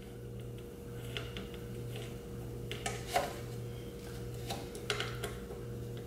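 Faint, scattered metallic clicks and ticks of a hand tool tightening the bracket screws on a motorcycle steering damper, the sharpest about three seconds in, over a steady low hum.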